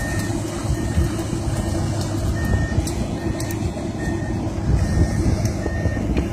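Komatsu PC200-8 excavator's diesel engine running steadily while the machine travels, with its travel alarm giving a short high beep a little faster than once a second.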